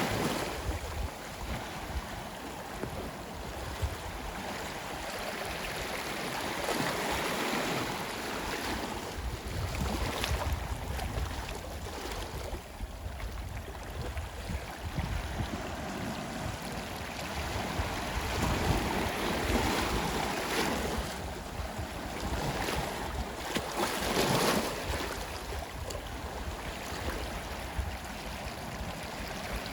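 Ocean surf washing onto a shore: a steady rushing noise that swells and recedes, with louder waves breaking about ten, twenty and twenty-four seconds in.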